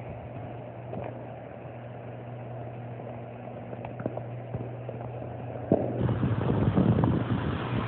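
Electrical fire in a power line and tree: a steady low hum runs throughout, then about six seconds in a sharp pop is followed by louder crackling as the flames flare up.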